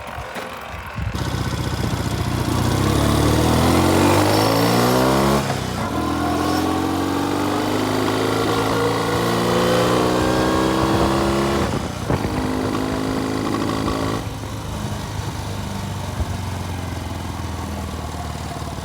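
Classic Norton motorcycle engine pulling away and accelerating through the gears. Its pitch climbs from about a second in, breaks at a shift about five seconds in, and climbs again to another shift near twelve seconds. After about fourteen seconds it settles into a quieter, lower run.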